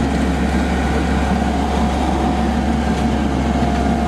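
Steady low drone of a running boat engine, with a constant thin whine over it.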